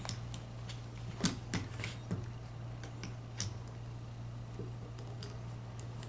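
Light clicks and knocks of a coaxial compression crimping tool and an F-connector being handled and seated in its jaw, most of them in the first half, over a steady low hum.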